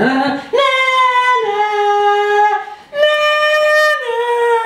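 A voice singing four long, high, steady held notes that step down, then up, then down again, with a short break between the second and third.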